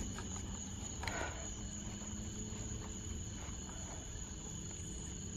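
Crickets trilling steadily in a night chorus, with a brief soft noise about a second in.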